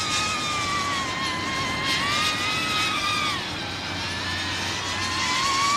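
HGLRC Veyron cinewhoop's motors and ducted propellers whining hard to hold the drone steady against gusty wind. The pitch wavers, sags about three seconds in, then climbs again near the end, over a steady rush of wind noise.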